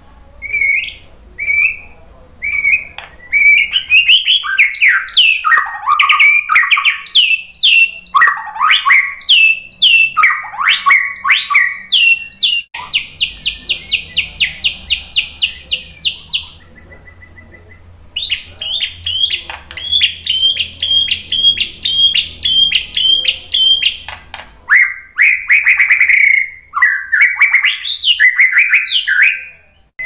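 White-rumped shama (murai batu) singing a loud, varied song of whistled phrases sliding up and down. About halfway through comes a fast trill of repeated notes, then after a brief pause a run of evenly spaced repeated notes, and more varied phrases near the end.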